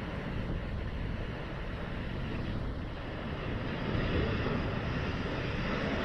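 Ocean waves breaking on a stony shore, a steady rush of surf mixed with wind rumbling on the microphone; it grows louder about two-thirds of the way through.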